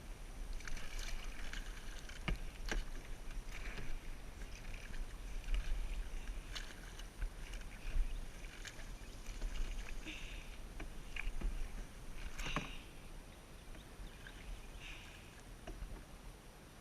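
Canoe paddles dipping and splashing in river water, with dripping and a few sharp knocks, the loudest about twelve seconds in.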